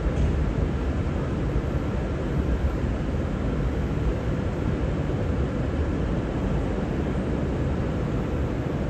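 V/Line Sprinter diesel railcars running with a steady low rumble.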